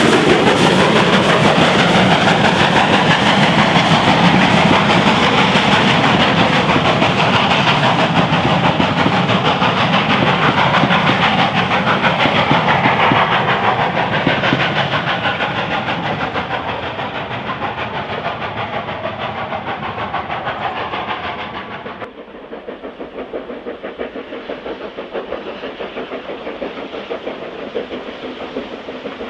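GWR Castle class 4-6-0 steam locomotive passing close, with steam hissing, then its coaches rolling by with wheels clicking over the rail joints, slowly fading. About two-thirds of the way through the sound drops suddenly to a quieter, more distant steam train approaching.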